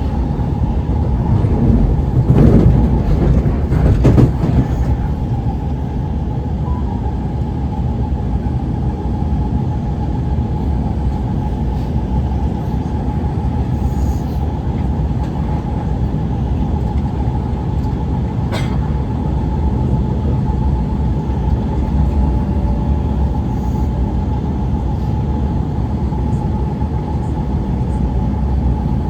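Interior of an Alstom Movia R151 metro train car running along the line: a steady rumble with a constant whine. There are louder rattles about two and four seconds in and a sharp click a little past halfway.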